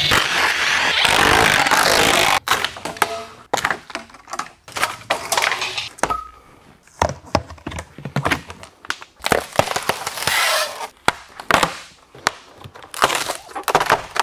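Cordless drill running for about two seconds at the vent window's screws, followed by a long run of sharp cracks, snaps and knocks as the fiberglass-covered foam board wall panel is pried and torn away from the camper frame.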